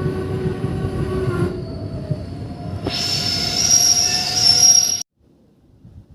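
Train running with steady rail noise, joined about three seconds in by a high steady squeal, as it slows into a station. The sound cuts off abruptly about five seconds in.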